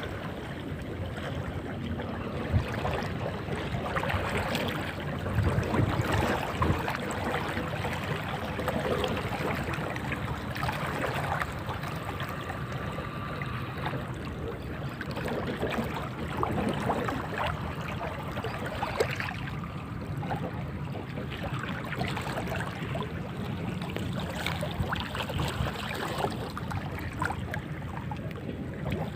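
Seawater lapping and sloshing as a steady wash, with scattered small clicks and a few louder knocks.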